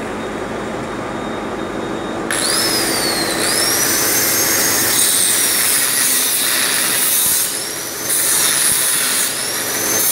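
Electric angle grinder starts about two seconds in and cuts through the steel banding straps on a wooden crate. Its high whine sags as the disc bites into the metal and climbs again as it frees, easing off briefly twice in the later part. Before it, a steady background hum.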